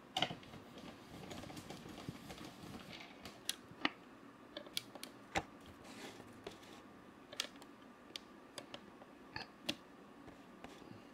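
Handling noise from a camera being moved and repositioned, picked up by its own built-in microphone: irregular light clicks and knocks, about a dozen, scattered over the whole stretch.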